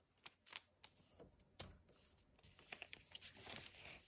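Faint paper rustling and a few soft taps as a square of origami paper is opened out and creased by hand.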